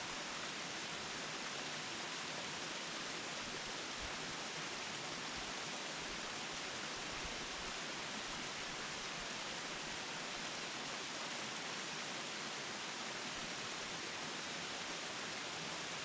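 Steady rush of a tall, narrow waterfall: an even hiss of falling water that never changes in level.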